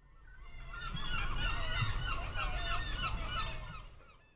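A flock of birds calling, many short honking calls overlapping at once, fading in over the first second and out near the end.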